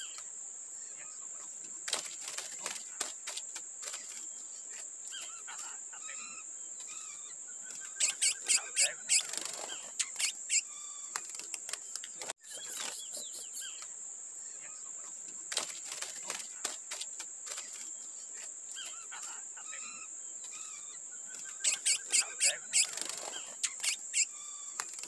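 Curió (chestnut-bellied seed finch) singing in phrases of whistled notes, twice breaking into a loud run of about six rapid notes, over a steady high-pitched buzz.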